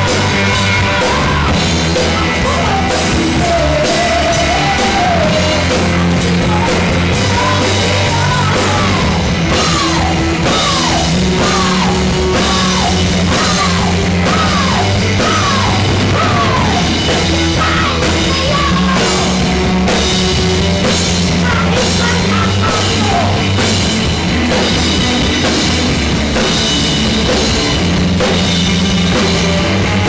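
Live amplified rock band playing steadily and loudly: electric guitars, a drum kit and a woman singing lead.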